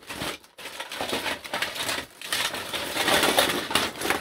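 Hands rummaging through a box piled with diecast toy cars and trucks: a dense, continuous clatter of small metal and plastic pieces clinking and knocking together, loudest about three seconds in.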